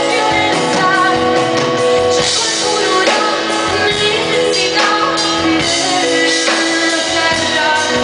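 Live pop-rock band playing loud and steady, with a drum beat, guitar and held chords, and a singer's voice over them.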